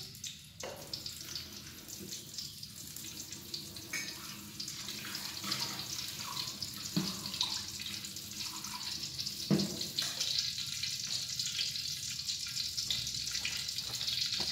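Kitchen tap water running into a steel sink as hands are washed under it, a steady splashing hiss, with a couple of sharp knocks partway through.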